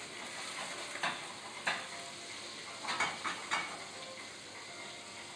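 Food frying in a pan on a gas burner, a steady sizzle. A few sharp knocks cut through it: one about a second in, another shortly after, and a quick run of four in the middle.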